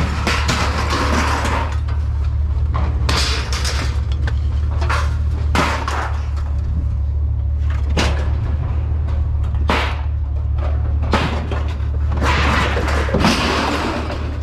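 Scrap metal being thrown onto a pile, a string of sharp clangs and clatters every second or so, over a steady low hum.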